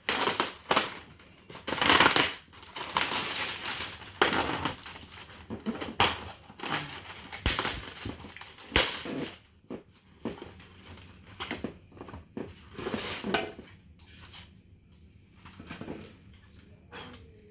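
A cardboard box being opened by hand, with flaps and styrofoam packing pieces scraping, crunching and rustling in irregular bursts that thin out over the last few seconds.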